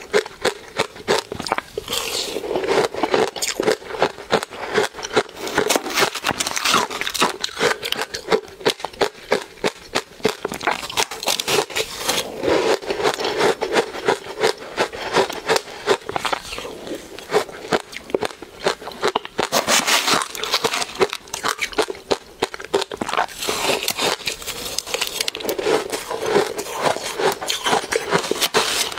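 Close-miked chewing of crunchy ice dusted with matcha powder: a dense, continuous crackle of many small crunches.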